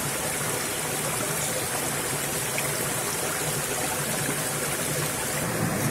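Steady rush of water from a shallow rocky stream running over boulders.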